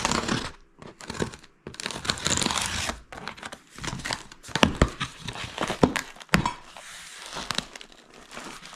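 A shipping package being opened by hand: packaging crinkling, rustling and tearing in irregular bursts, with a few sharp clicks and knocks in the second half.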